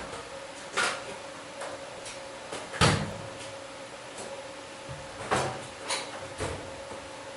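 Sharp knocks and clunks of hands handling tools and parts at a metal lathe, about five of them, the loudest about three seconds in, over a steady faint hum.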